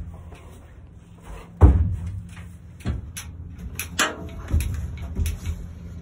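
Metal horse trailer clanking as a horse is loaded and the door is shut and latched: one heavy bang about a second and a half in, then a run of lighter knocks and latch clicks.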